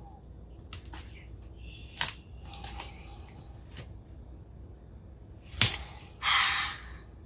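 Small clicks and taps of a spatula spreading frosting on a cupcake, with a sharp knock about two seconds in and a louder one near the end, followed by a short scrape.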